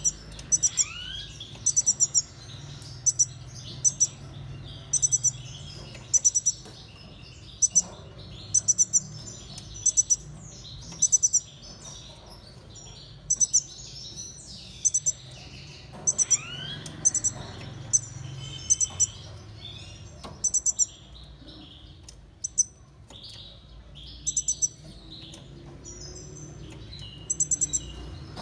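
Caged finches chirping: a sharp, high call repeated about every second or so, over softer twittering from other birds.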